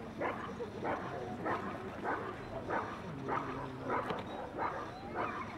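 A dog barking steadily and rhythmically at a helper holding a protection sleeve, about three barks every two seconds. This is the hold-and-bark of IPO protection work, in which the dog guards the motionless helper by barking without biting.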